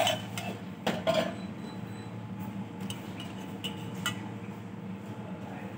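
Clinks and clatter of dishes and metal utensils, a few sharp knocks in the first second or so, then lighter scattered clinks, over a steady low hum.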